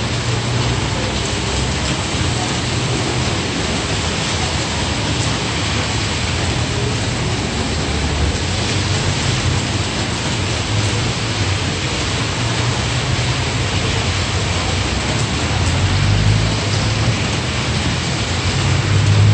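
Steady rain falling on a wet street, with a low vehicle engine rumble underneath that swells a few seconds before the end.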